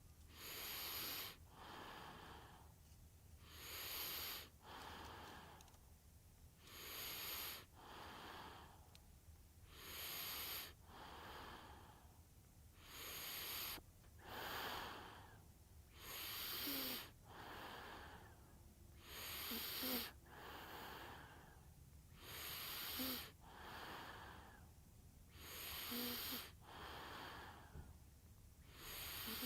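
A sleeping baby's light breathing and light snoring, one breath cycle about every three seconds. Each cycle is a louder, hissy breath followed by a softer, lower one. In the second half some breaths carry a faint squeak. A low, steady hum runs underneath.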